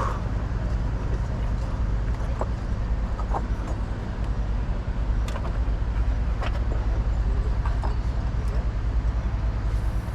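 Steady low rumble of road traffic on the bridge overhead, with scattered small clicks through it.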